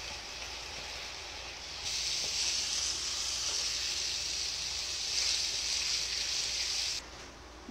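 Ground pork sizzling in a pan as the last of its cooking liquid boils off and it fries in the fat it has released. The sizzle gets louder about two seconds in and drops off sharply near the end.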